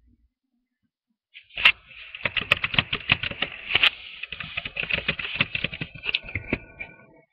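A dense run of rapid clicks and taps close to the microphone, starting about a second and a half in after a moment of silence.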